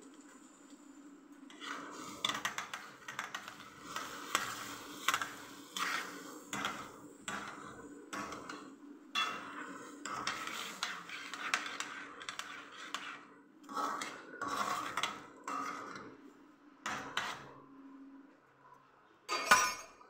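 A spoon stirring pumpkin seeds in a metal pan: a long run of irregular scrapes, rattles and clinks over a steady low hum, stopping a few seconds before the end. One loud knock comes near the end.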